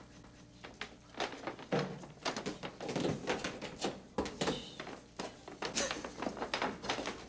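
A string of knocks, taps and clatters from broom, mop and pole handles being pushed through the metal handles of restroom stall doors to bar them shut.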